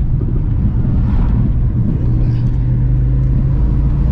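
Car engine and road rumble heard from inside the cabin while driving, a steady low drone that settles into an even engine note about halfway through.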